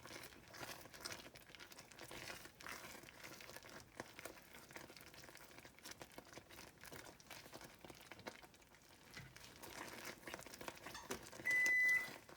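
Butter and brown sugar caramel boiling in a saucepan, a faint crackling sizzle of many small pops. Near the end a kitchen timer starts beeping in a steady high tone, marking the end of the three-minute boil.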